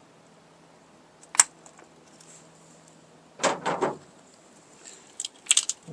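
Hand tools and an engine wiring harness being handled on a workbench: a sharp click about a second and a half in, a short clatter a couple of seconds later, and a few light clicks near the end.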